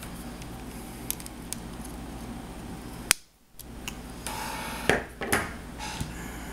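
Small plastic and metal parts of an RC car's axle and hub assembly being handled and fitted by hand: light clicks and rustling over a steady low hum. There is a sharp click about three seconds in, and two louder snapping clicks near the end.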